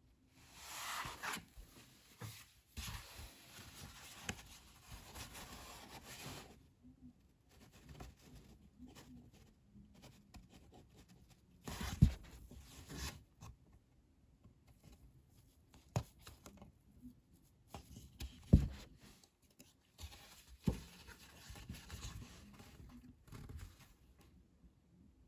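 Hand-sewing a book's binding: linen thread rasps as it is drawn through the folded sheets of heavy paper, and the paper rustles in several stretches. Four sharp knocks come from the middle onward.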